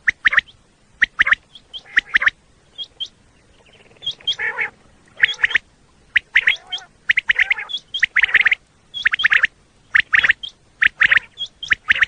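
Common quail calling: repeated phrases of short, sharp notes, mostly in threes, about one phrase a second, with thin higher notes between phrases.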